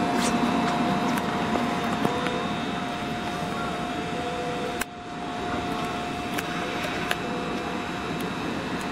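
Steady running noise of an HB-E300 series diesel-hybrid railcar, a constant hum with a steady whine over it and a few light clicks. The sound drops off sharply for a moment about five seconds in, then returns.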